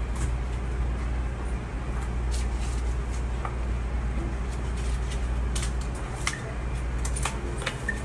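Steady low hum with a few faint, scattered clicks, mostly in the second half.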